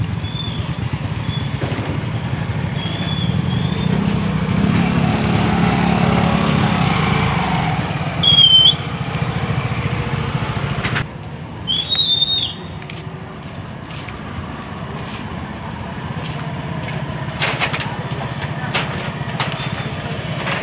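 Motorcycle engines running in slow street traffic, the engine note swelling for a few seconds early on. Two loud, high-pitched squeals come about eight and twelve seconds in.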